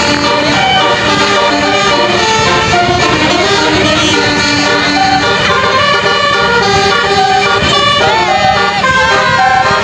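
Basuri telolet bus horns playing a fast tune of stepped notes, with a bus engine running underneath.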